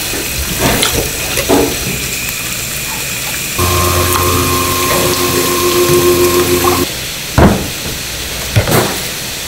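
Tap water running steadily into a steel tray, with a steady hiss. From about three and a half to seven seconds a machine hum with several steady tones joins it. A few short knocks come from handling fish on the work surface.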